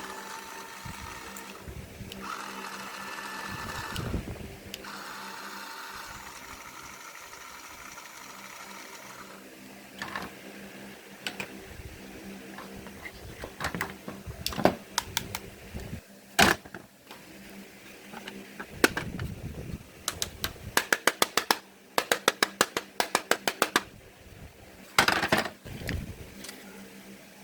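A small electric motor whirring in short spells, with a steady high whine. It is followed by scattered sharp clicks and a fast, even run of ticks, as of small parts being worked by hand.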